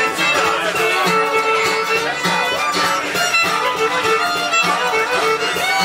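Live band playing an upbeat dance tune, a fiddle carrying the melody over electric bass and a steady pulsing beat.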